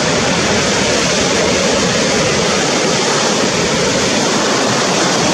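Heavy ocean surf breaking and washing over rocks: a steady, loud rush of churning whitewater.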